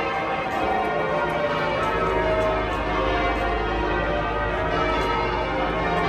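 Change ringing on St Paul's Cathedral's ring of twelve bells, heard from the street: a continuous, dense peal of overlapping bell strikes. A low rumble sits underneath from about two seconds in.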